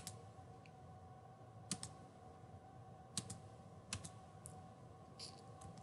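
Scattered short clicks from a computer being operated to step through slides, several of them in quick pairs, over a faint steady hum.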